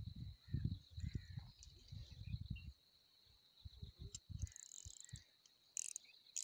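A cricket trills as a steady, continuous high note. Irregular low thumps and rumbles on the microphone come and go, mostly in the first half.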